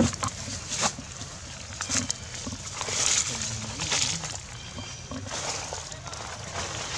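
Dry leaf litter and undergrowth rustling and crackling in irregular bursts, loudest about three to four seconds in.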